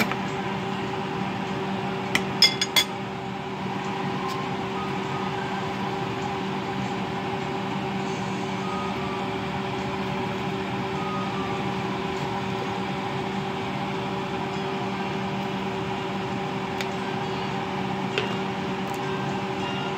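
A steady kitchen machine hum. Three or four sharp clinks of a metal spoon against the enamel pot about two seconds in.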